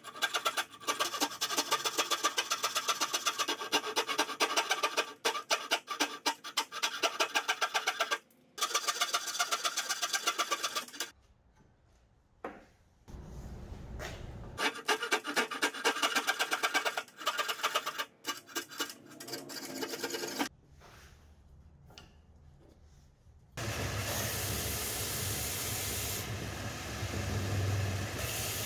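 Hand saw cutting a wooden block clamped in a vise, in quick, even back-and-forth strokes with a few short pauses. Near the end a belt sander runs steadily with the wood pressed against its abrasive belt.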